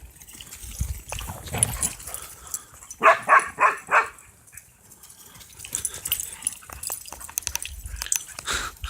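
Dog barking at birds in a quick run of about five barks around three seconds in, with scattered clicks and scuffling around it.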